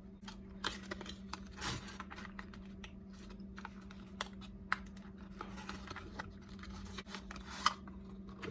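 Cardboard and paper packaging being handled and unpacked: scattered light taps, scrapes and rustles, with a sharper click near the end, over a steady low hum.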